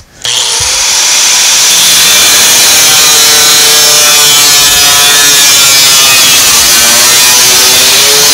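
Zip-cut cut-off wheel grinding through overlapped steel fender sheet metal: a loud, steady whine and hiss that starts at once, its pitch dipping slightly under load and then recovering.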